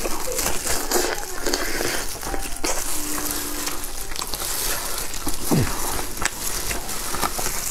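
Crackling and crinkling as crispy-crusted chicken is pulled apart by hands in plastic gloves over aluminium foil: a dense run of small crackles and clicks. A brief falling tone sounds a little past the middle.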